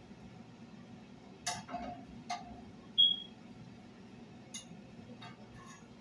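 A metal spoon tapping and scraping in a nonstick frying pan while butter is stirred as it melts: a few light clicks and one short, high clink about three seconds in.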